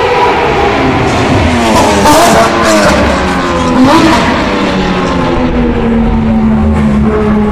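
Porsche sports car engines at high revs on a race circuit, loud, the pitch climbing and dropping back a few times, most sharply around two and four seconds in.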